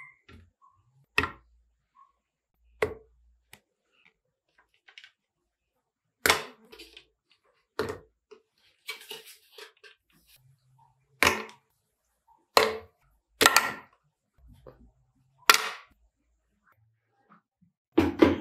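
Chocolate-coated ice cream cubes dropped one by one into a plastic blender jug, each landing with a short, sharp knock, about eight of them a second or more apart. A quicker jumble of knocks starts near the end.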